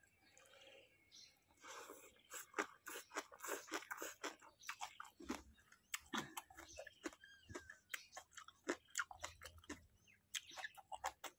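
Close-up chewing of a mouthful of rice noodles wrapped in raw water spinach, with many quick, crisp crunches from the fresh greens.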